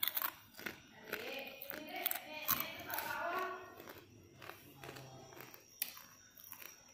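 A raised voice for two or three seconds, with scattered sharp knocks and clicks around it.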